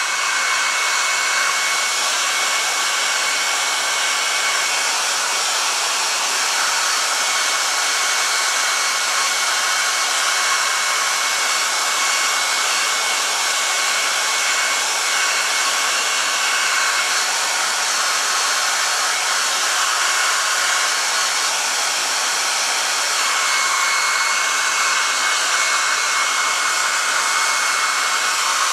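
Handheld hair dryer running steadily, blowing on a freshly mounted squirrel's fur to dry it, with a thin steady whine over the rush of air.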